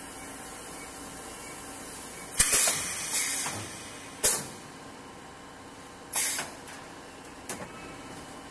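HDPE bottle extrusion blow molding machine running with a steady hum, broken by several short bursts of compressed-air hiss from its pneumatic valves and cylinders, the first a little over two seconds in. About four seconds in there is a sharp clack with a hiss, and near the end a small click.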